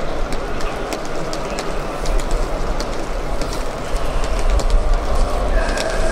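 Scattered sharp hand slaps and claps over a steady low rumble and dense background noise.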